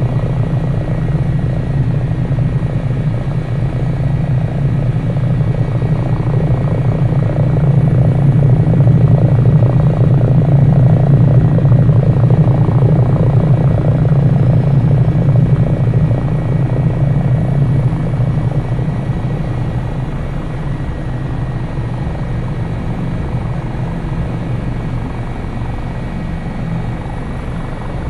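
Twin-engine Eurocopter AS365 Dauphin helicopter running close by during its landing, with a steady rotor beat and a faint high whine. It grows louder to a peak about ten seconds in, then eases to a lower, steadier level.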